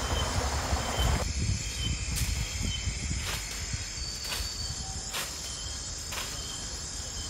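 Insect chirping: one short, high chirp about once a second, over a steady low rumble, with a few sharp clicks scattered through.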